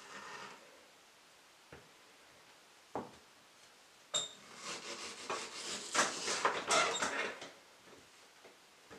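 Chef's knife cutting mango on a wooden cutting board: a few single knocks of the blade on the board, then a quick run of slicing strokes and taps for about three seconds near the middle.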